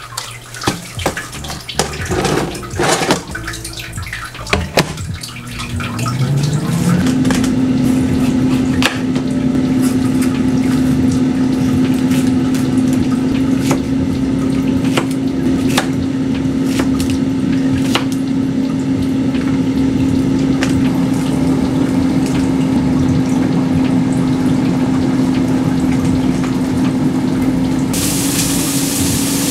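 Clatter of a tray and oven door, then a countertop oven's fan motor spinning up with a rising hum about six seconds in and running with a steady hum and rush of air. Knife chops on a wooden cutting board tick now and then, and near the end a sizzle from the frying pan joins.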